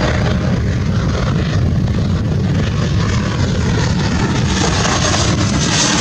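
Jet engines of an Embraer 195 regional jet on landing approach, passing low overhead: a steady low rumble with a rushing hiss that grows louder near the end as the aircraft closes in.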